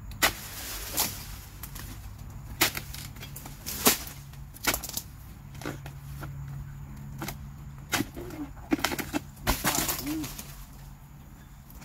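Oil palm harvesting chisel (dodos) on a long pole striking and cutting into the frond bases of an oil palm: a series of sharp chopping strikes spaced irregularly, coming faster near the end.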